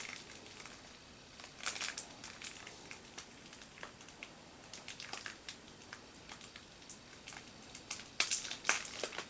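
Toy packaging crinkling and crackling as it is handled and opened, with scattered small clicks and louder rustles about two seconds in and again near the end.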